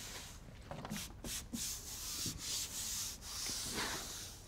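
A hand rubbing and pressing across the paper face of a plasterboard sheet to bed it onto glue on the studs: several brushing swishes with a few light knocks.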